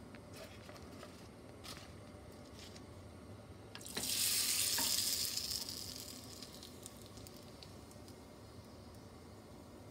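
Rice paper frying in hot oil in a frying pan: a sizzle breaks out suddenly about four seconds in, is loud for a second or two, then dies away over the next couple of seconds. A few faint clicks come before it.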